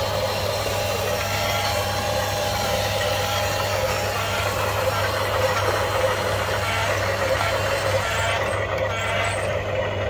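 Steady truck engine sound effect from a toy RC construction vehicle, running continuously at an even level.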